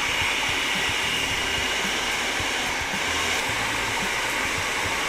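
Russell Hobbs food processor motor running steadily, its blade puréeing a chunky tomato-and-onion masala base.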